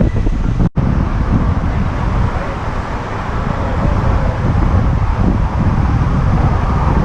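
Wind buffeting the microphone: a steady, loud low rumble, broken by a brief dropout about a second in.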